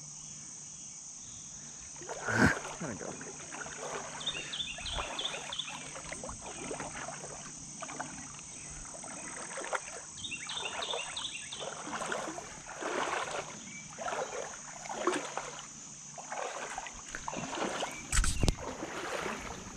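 Wading steps sloshing through shallow creek water, about one a second, over a steady high drone of crickets and other insects. A sharp knock near the end.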